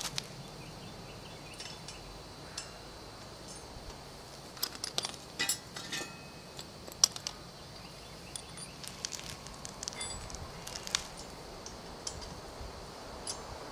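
Light metallic clicks and clinks of a crank bolt and Allen key against a bicycle crank arm as the bolt is started on the bottom-bracket spindle, coming in irregular bunches with one sharper click about seven seconds in.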